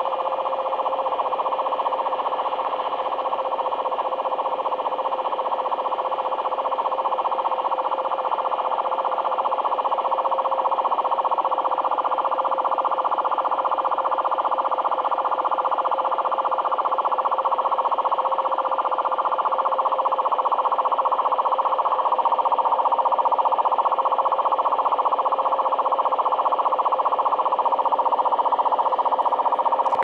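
Sony ICF-SW7600G portable radio playing an unidentified signal on 1260 kHz medium wave, received in SSB/USB mode: a steady tone under a dense buzzing band whose pitch drifts slightly up and down, growing a little louder. The uploader suspects it is a utility station.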